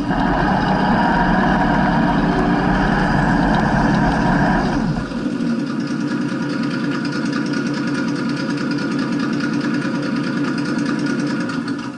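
A motor running steadily; about five seconds in its higher-pitched part drops away and it runs on more quietly, then the sound cuts off abruptly near the end.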